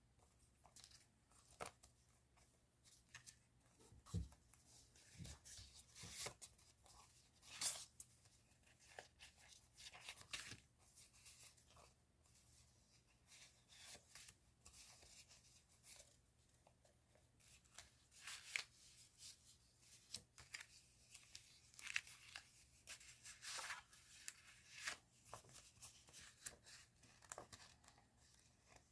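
Paper stationery such as sticker sheets being handled: an irregular run of short tearing and crinkling sounds, a few of them louder than the rest.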